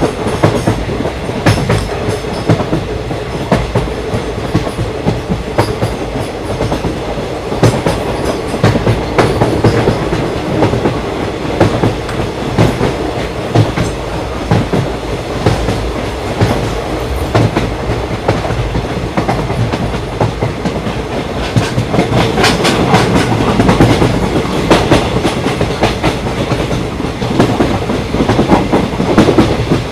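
Indian Railways ICF passenger coach running at speed: steady rumble of the wheels on the rails with the clickety-clack of the bogies passing over rail joints, knocks coming in irregular clusters.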